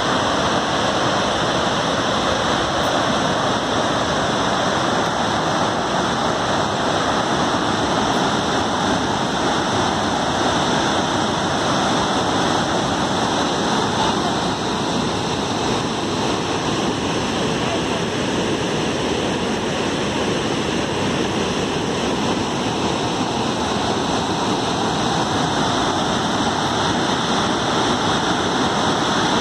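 Unchalli Falls, a large waterfall in heavy flow, heard as a loud, steady rush of falling water.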